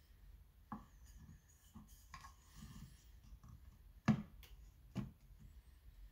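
Faint handling noise as a Berliner gramophone commemoration disc is set down on a gramophone turntable: rubbing and scraping with a few short knocks. The sharpest knock comes about four seconds in, as the disc is pressed onto the turntable, with smaller ones about a second in and about five seconds in.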